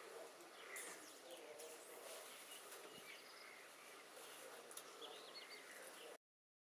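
Faint outdoor background with birds chirping now and then in the distance; all sound cuts off abruptly near the end.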